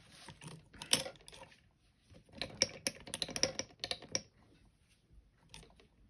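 Small metallic clicks and rattles from a 5-lever Bulldog lever padlock being worked at its keyhole to lock it again: a couple of clicks about a second in, a quick run of clicks in the middle, and a few more near the end.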